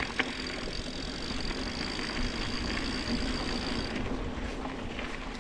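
Yeti SB150 mountain bike rolling along a dirt trail: steady tyre and rattle noise, with a sharp knock shortly after the start. A faint high whine runs through the first part and stops about four seconds in.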